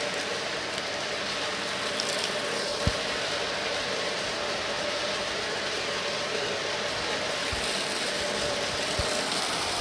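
Stick vacuum running steadily with a motor whine over its airflow hiss as it sucks up sand, shells and glitter from carpet. A few sharp clicks of debris rattle into it.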